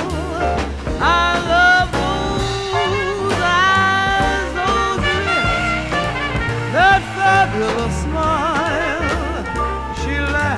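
Swing-style background music, with wavering held notes over a steady bass line.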